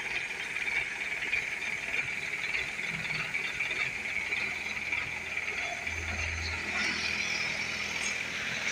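Hino Ranger SG 260 tractor unit's diesel engine idling low and steady, with a steady high-pitched drone over it.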